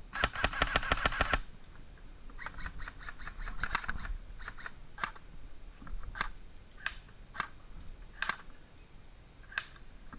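Airsoft guns firing: a rapid burst of about a dozen sharp clicking shots in the first second and a half, then scattered single shots.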